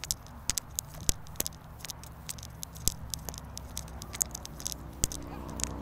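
Footsteps and clothing rustle close to the microphone: irregular soft clicks and crackles over a low steady hum.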